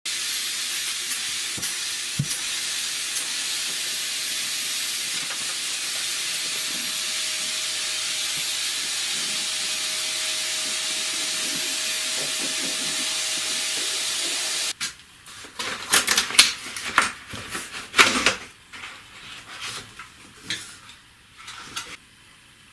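Vacuum suction through a hose picking up fine dust from a concrete floor: a steady loud hiss of rushing air with a faint steady whine. It cuts off suddenly about 15 seconds in, followed by a run of irregular knocks and clatters.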